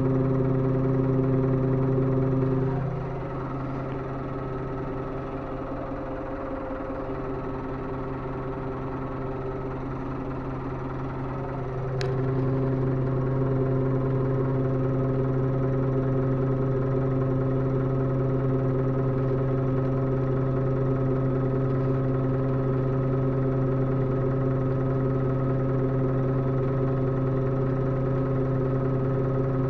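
Tractor diesel engine running steadily, heard from inside the cab as an even, strongly pitched hum. Its note softens about three seconds in and comes back up near twelve seconds, marked by one sharp click.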